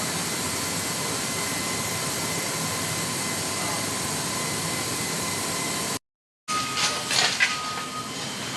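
Steady jet-engine noise with a faint high whine, cutting off abruptly about six seconds in. Gusty, uneven noise follows with an intermittent steady beeping.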